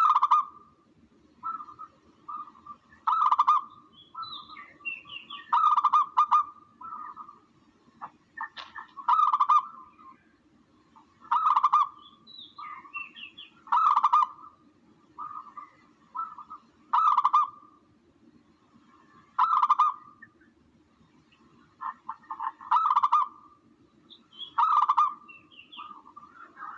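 Recorded dove (tukmo) calls used as a bird-hunting lure, repeating about every two to three seconds, with occasional higher chirps between them. A faint steady low hum runs underneath.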